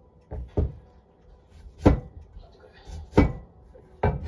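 Heavy cleaver chopping through daikon radish and striking the cutting board: about five sharp knocks, two in quick succession near the start, then roughly one a second.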